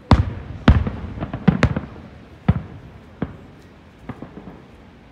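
Aerial firework shells bursting: a quick run of sharp bangs in the first two seconds, then single bangs spaced further apart.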